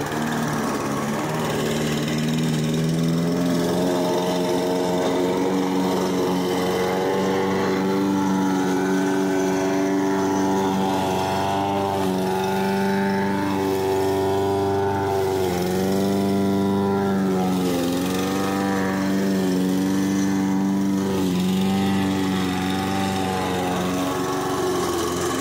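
Gasoline lawn mower engine running steadily, its pitch sagging and recovering every few seconds as the engine speed wavers.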